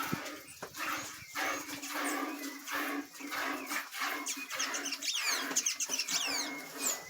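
Farmyard animal sounds over a steady low hum, with a run of high, quick chirps about two thirds of the way through.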